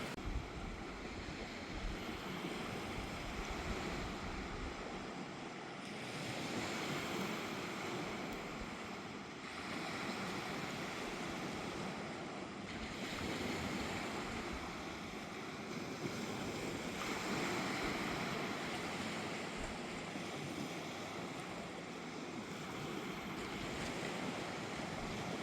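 Sea surf washing on the beach, swelling and easing every few seconds, with some wind.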